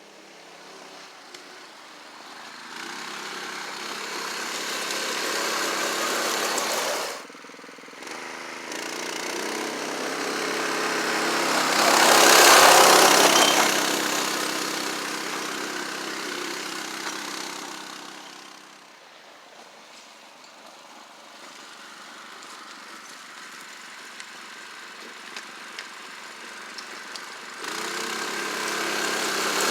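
A Polaris Trail Boss ATV running on a swapped-in 212cc Predator single-cylinder four-stroke engine. It grows louder, dips briefly about seven seconds in, is loudest about twelve seconds in, then fades and stays lower before rising again near the end.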